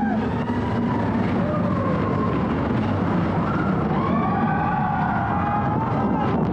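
Riders screaming on the Expedition Everest roller coaster: several long, wavering screams overlapping, over the steady rumble of the coaster train on its track.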